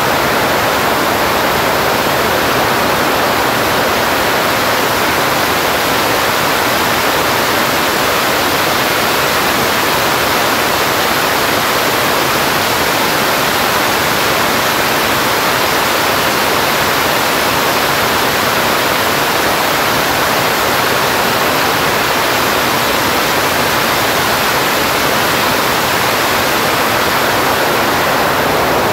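Homemade jet engine running at high thrust, a loud, steady jet roar.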